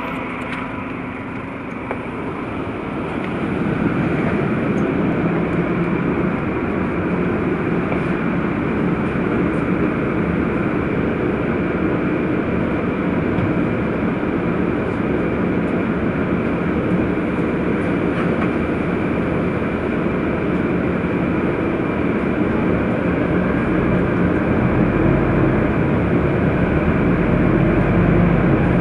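Steady engine and rolling noise inside a Scania Citywide LF city bus as it drives, getting louder about four seconds in and then holding level.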